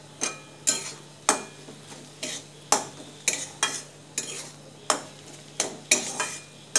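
Metal spatula scraping and knocking against a steel kadai, about two strokes a second at an uneven pace, as mashed-potato filling is stirred and turned to mix in roasted spice powder and dry it out.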